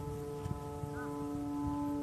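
Vietnamese kite flutes (sáo diều), a large 'train horn' set, droning a steady chord of several held tones as the wind blows through them, over a low rumble of wind.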